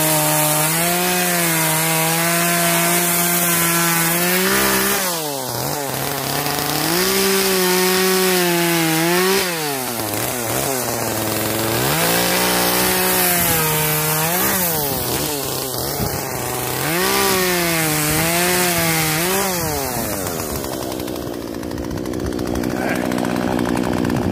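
Poulan 33cc two-stroke chainsaw running at full throttle while cutting through a log. Its pitch sags and climbs back several times as the chain works in the cut, then drops lower near the end. The chain is one the owner says definitely needs sharpening.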